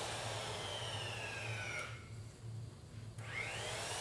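Electric drill turning a straight (Collins) tube roller inside a boiler tube, re-rolling the beaded tube tight in the tube sheet. The motor whine slides down in pitch as it runs, stops about halfway through, then spins up again near the end, over a steady low hum.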